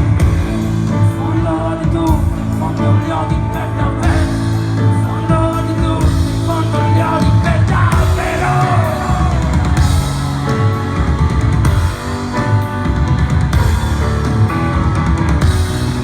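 A rock band playing live: drum kit, electric guitars and singing, loud and steady throughout.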